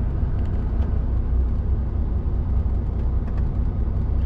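HGV's diesel engine and drivetrain heard from inside the cab as a steady low rumble, the truck creeping along in slow queued traffic.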